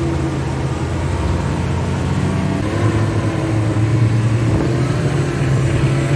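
Snowmobile engine running at speed, its pitch shifting slightly up and down a few times, over a steady rush of wind and track noise.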